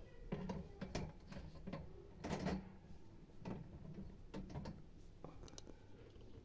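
Glass storage jars with plastic lids being set down and pushed into a wire shelf basket: a run of light clicks and knocks at uneven intervals, with a longer scrape about two and a half seconds in.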